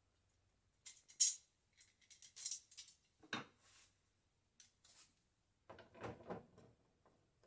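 Handheld screwdriver and a metal TV wall-mount bracket arm being fitted to the back of a flat-screen TV with M8 screws: a few light clicks and knocks, a sharp click about a second in, then from about three-quarters of the way through a close run of scraping and rattling as a screw is turned in.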